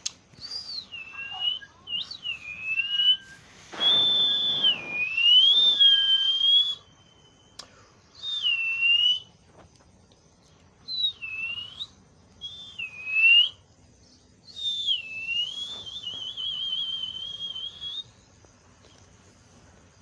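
Pet parakeet giving a series of clear whistles, each dipping and rising in pitch, with short pauses between them. The last whistle is longer and ends in a wavering trill.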